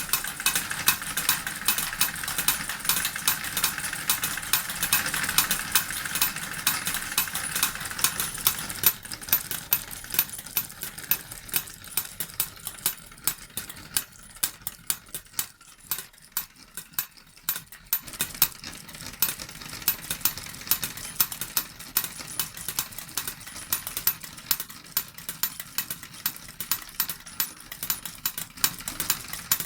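Model steam engine driving two little forge hammers, clattering with rapid, uneven metallic ticks. A steam hiss runs under it for the first eight seconds or so and then dies away.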